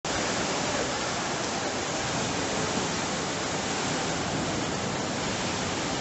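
The Rain Oculus water fountain: a thick column of water falling from the ceiling and splashing into a round pool, making a steady, even rush of falling water.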